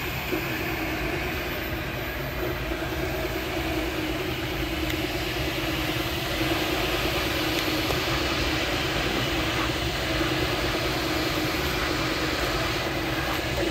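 MakerBot Replicator desktop 3D printer running mid-print, its motors and fan giving a steady whirring hum.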